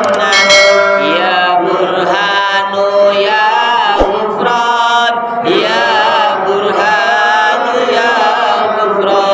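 Voices chanting Islamic dhikr in a melodic, drawn-out way, with held and gliding notes, as in an istighosah litany.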